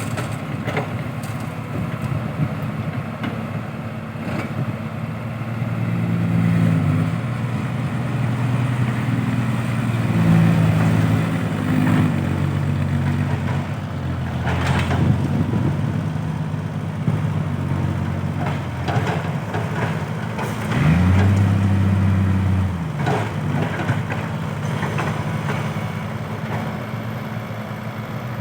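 A motor vehicle's engine running, its pitch shifting up and down a few times, with one rise and fall about three quarters of the way through.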